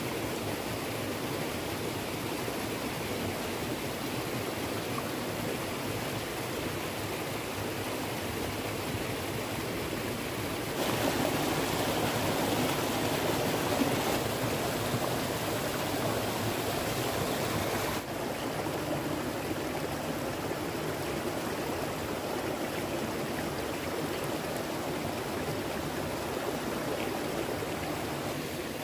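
Stream water running steadily. In the middle there is a louder, brighter stretch of rushing water lasting about seven seconds that starts and stops abruptly.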